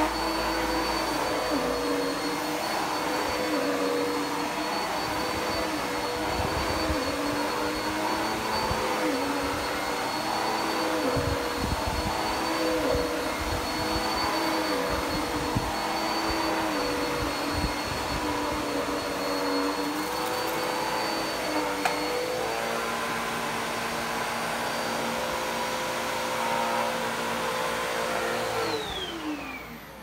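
Dirt Devil PowerMax Pet upright vacuum cleaner running on carpet: a steady motor whine over a rush of air, with the lower hum shifting slightly as it is pushed along. Near the end the motor is switched off and the whine falls in pitch as it spins down.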